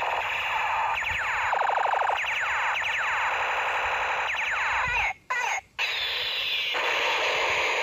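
Battery-powered toy AK-47 rifle playing its electronic firing sound effect through a small speaker: a continuous synthesized rattle with repeated falling siren-like sweeps, breaking off twice briefly about five seconds in.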